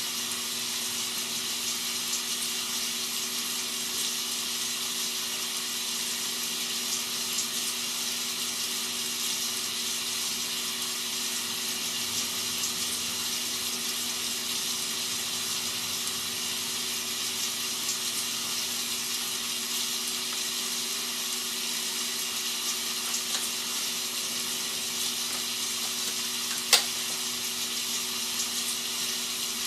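Rain sound effect: a steady, even hiss of falling rain used as white noise, over a faint steady low hum. A single sharp click near the end.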